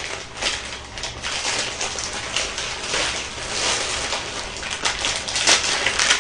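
Plastic instant-ramen packet crinkling in irregular crackles as it is handled and torn open.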